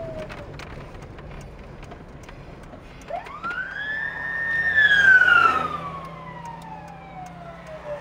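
Emergency vehicle siren wailing: the end of one falling wail at the start, then one long slow wail that rises about three seconds in, peaks loudest around five seconds, and sinks slowly toward the end. Under it is the low steady rumble of the car the sound is heard from.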